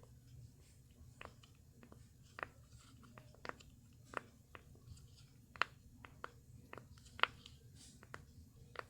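Silicone pop-it bubbles on a dolphin puppet fidget toy being pressed one by one, giving a dozen or so short soft pops at uneven spacing, a couple of them louder.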